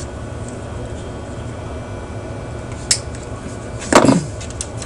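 Tools being handled on a workbench: a sharp click about three seconds in, then a louder brief clatter about a second later and a few small ticks, over a steady low hum.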